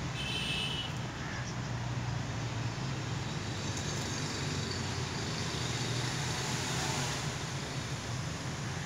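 Steady outdoor background noise with a low hum, like distant road traffic. A brief high-pitched call sounds about half a second in.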